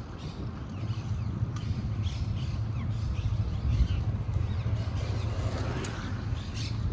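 Birds chirping and calling over a steady low rumble of wind and rolling noise from a moving bicycle.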